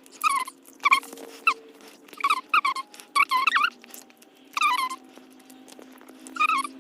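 An animal's short, high-pitched cries, repeated in irregular bursts, over a faint steady hum.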